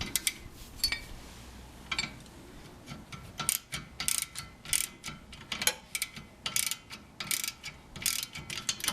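Ratcheting 13mm socket wrench tightening a brake caliper bolt: a few clicks at first, then repeated strokes of rapid clicking, roughly one a second or faster, from about three seconds in.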